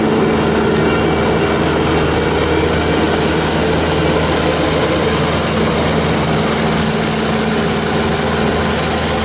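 Bobcat T770 tracked skid steer's diesel engine running loud and steady while driving its forestry mulcher head, a constant engine hum under a dense rushing noise.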